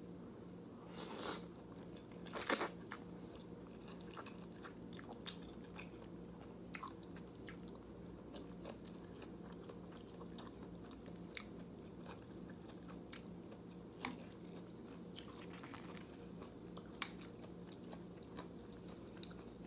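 Close-miked eating of jjajangmyeon noodles: chewing with scattered small mouth and utensil clicks. There is a short noisy sound about a second in and a sharp click, the loudest, about two and a half seconds in.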